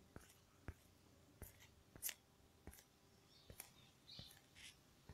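Near silence: room tone with a few faint, scattered clicks and soft brief hisses.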